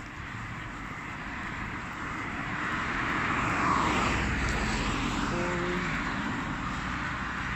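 Drone of a passing engine, an aircraft overhead or a vehicle going by, swelling to its loudest about halfway through and then slowly fading.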